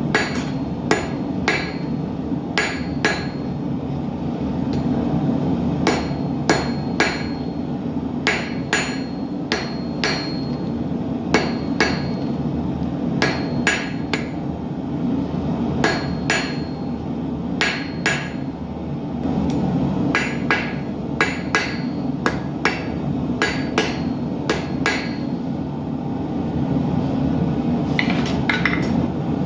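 Blacksmith's hammer striking hot steel on an anvil while forging an arrowhead: irregular blows about one to two a second, some with a short metallic ring, and a quick run of strikes near the end. A steady rushing noise runs underneath.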